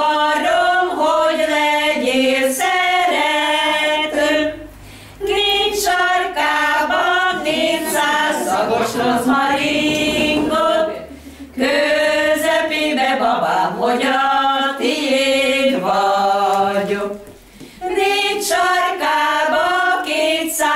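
A small group of women singing a Hungarian folk song unaccompanied, in long phrases with three short pauses for breath.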